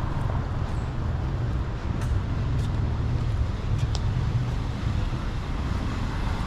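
Steady city street traffic noise: the low rumble of passing cars.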